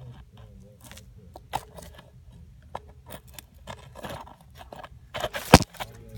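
Handling noise of a phone camera rubbing and knocking against dirt, dry debris and wire: scattered scrapes, crunches and small clicks, with one sharp knock about five and a half seconds in.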